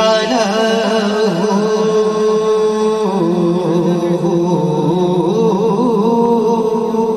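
A man singing a naat, an unaccompanied devotional song, into a microphone with long held, wavering notes; the melody steps down about three seconds in.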